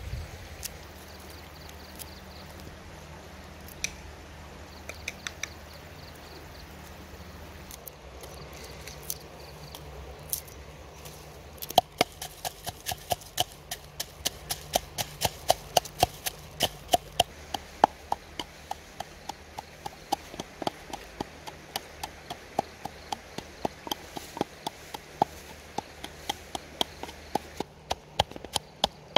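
Stone pestle pounding garlic and spices in a clay mortar: a steady run of sharp knocks, about three a second, starting about twelve seconds in. Before that, only a few scattered small clicks over a steady background hiss.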